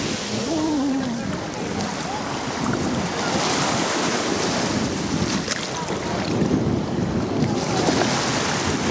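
Small sea waves washing up and lapping on a gravelly shoreline, with wind buffeting the microphone. The wash swells twice, about three seconds in and again near the end.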